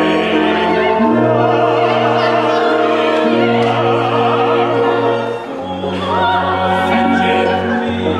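A small opera pit orchestra plays held chords that change every second or two under an operatic singing voice with vibrato. Its level dips briefly just past halfway before a new chord comes in.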